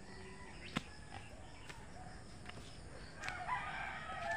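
Faint bird calls and a few sharp clicks, the calls growing louder near the end.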